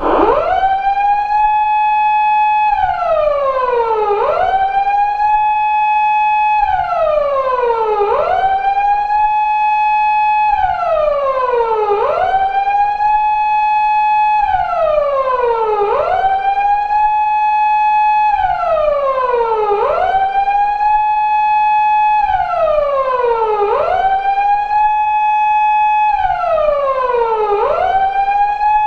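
Japanese police car siren of the 2000s type used on 170- and 180-series Toyota Crown patrol cars, reproduced as a sound effect, wailing in a 4-second cycle. Each cycle rises quickly to a high pitch, holds it for a moment, then slides slowly down before rising again, and this repeats evenly about seven times.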